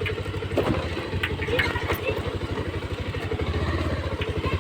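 Motorcycle engine idling with an even pulsing beat, with a few light clicks about a second in.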